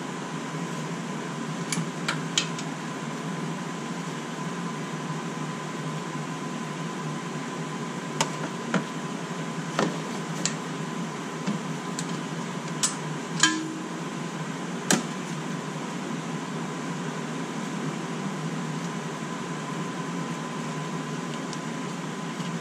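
About a dozen light metallic clicks and taps from hand work on a brake line fitting at the front caliper, scattered through the middle, the loudest about halfway with a brief ring. Under them runs a steady hum with a faint high whine.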